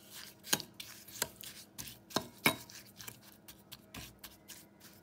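A spoon stirring halved strawberries and sugar in a glass bowl, knocking and clicking against the bowl at an irregular pace, the loudest knocks about half a second, two seconds and two and a half seconds in.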